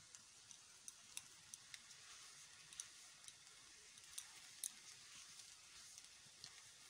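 Faint, irregular crackling ticks from rice frying in a pan, over a soft high hiss.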